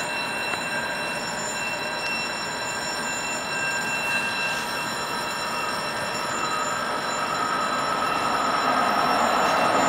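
An X2 (X2000) high-speed electric train approaching through the station: a steady rail rumble with a few thin, high, steady whines, growing louder over the last few seconds as the train nears.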